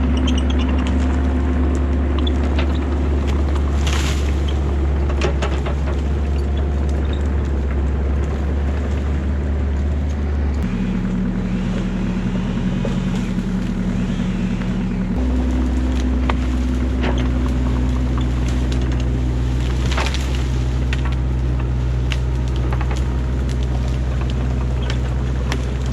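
Kubota KX121-3 mini excavator's diesel engine running steadily under working load, its engine note shifting for about four seconds midway and then settling back. A couple of brief sharp knocks or hisses from the working machine stand out over it.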